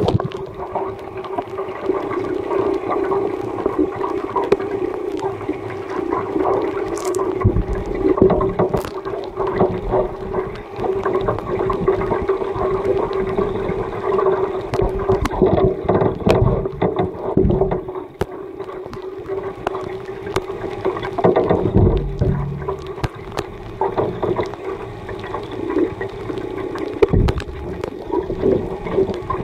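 Water sloshing and gurgling around work boots moving in a water-filled tub, heard underwater. Under it runs a steady hum, with scattered clicks and a few dull thumps.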